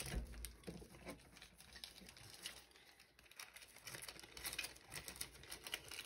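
Faint rustling and crinkling of small plastic bags of diamond-painting drills being gathered up and set down, with scattered light ticks.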